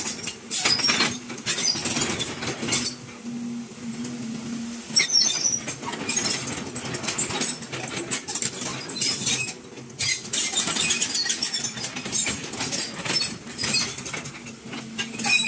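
Volvo EC210B crawler excavator's diesel engine running with a steady hum while the machine works its boom, with a stream of high-pitched squeaks and clicks over it.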